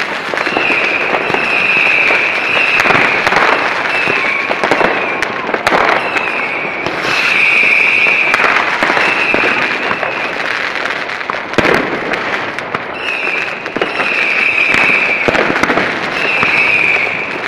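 Many fireworks and firecrackers going off at once: a dense, continuous crackle of pops and bangs, with a sharper bang about twelve seconds in. A high whistling tone from whistling fireworks comes and goes in stretches of a second or more.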